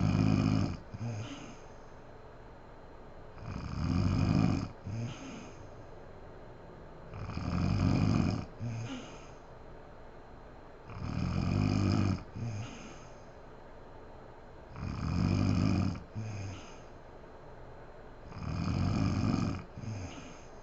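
A sleeping woman snoring in a steady rhythm: a loud, rough snore about every four seconds, six in all, each followed a moment later by a short, fainter second sound.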